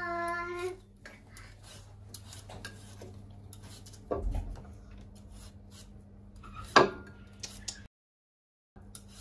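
Y-shaped vegetable peeler scraping the skin off a raw potato in many short strokes, with peel strips dropping onto a glass plate; a sharp click near 7 seconds is the loudest sound, with a dull thump about 4 seconds in. A brief steady high tone opens it, and the sound cuts out for about a second near the end.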